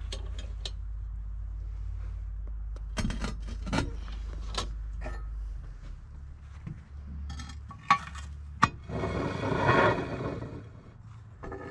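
Clinks and knocks of a steel lid lifter against the handle and rim of a 12-inch Lodge cast-iron Dutch oven lid covered in charcoal briquettes. Two sharp clacks come just before a longer grating scrape near the end, as the lid is shifted on the pot.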